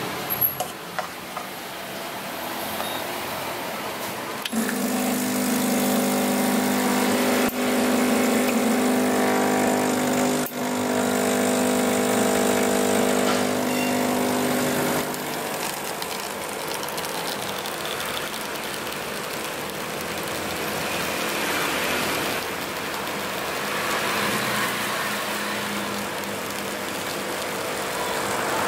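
Espresso machine's pump running steadily as a shot is pulled, after a few clicks near the start as the portafilter is locked in and the shot is started. The hum is loudest for about ten seconds from about four seconds in, then drops to a softer steady hum while espresso streams into the cup.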